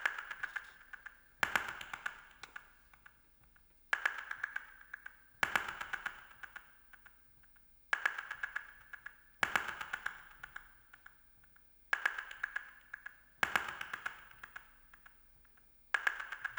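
A repeating pattern of ringing pings, each struck sharply and dying away with a light clicking rattle. They come in pairs about a second and a half apart, and the pair repeats every four seconds.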